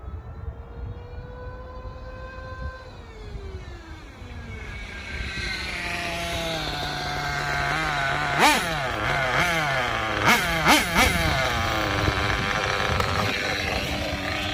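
Small nitro engine of a 1:8 on-road RC car (Kyosho Inferno GT) running at high revs on a top-speed run. Its pitch swings up and down as it is driven, and it grows louder as the car approaches. It gives loud peaks as it passes close, about eight and a half seconds in and again around ten to eleven seconds in.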